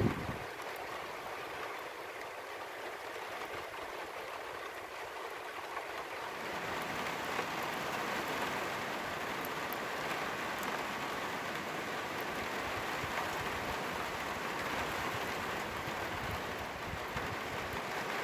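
Steady rain falling on a flat roof, an even hiss with no distinct drops standing out. About six seconds in it grows a little louder and fuller, with more low rumble under the hiss.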